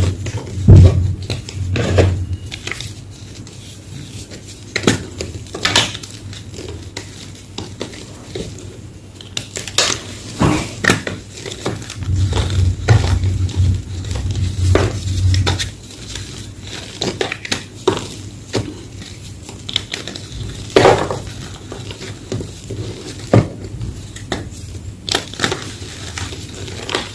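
Homemade gym chalk block being crushed and crumbled, giving irregular sharp cracks and crunches, several a second at times and sparser at others.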